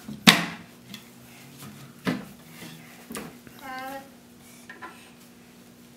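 A few sharp clacks and knocks from a wooden toy kitchen's doors and small metal toy cookware, the loudest about a third of a second in. A brief child's vocal sound comes a little past halfway.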